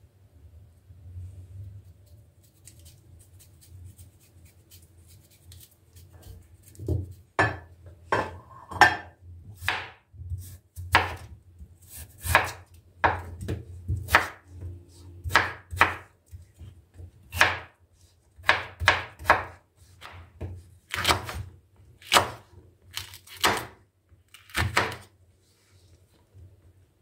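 A knife chopping on a wooden cutting board in slow, uneven strokes, about one or two a second. The strokes start about seven seconds in and stop shortly before the end.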